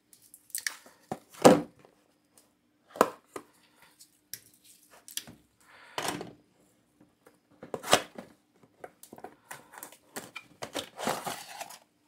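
A cardboard product box being opened by hand and an LED bulb slid out with its paper insert: irregular clicks, scrapes and papery rustles of the carton flaps, the loudest snaps about a second and a half in and about eight seconds in.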